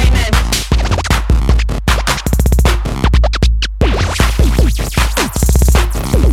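Electronic music with a heavy drum-machine beat and turntable scratching, which cuts out briefly about halfway through.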